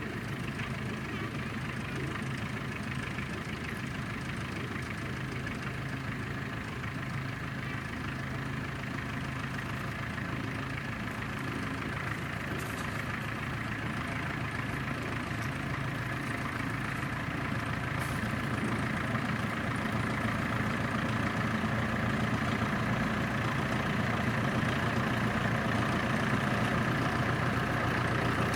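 Diesel engine of a narrow-gauge forest railway locomotive running steadily, slowly getting louder.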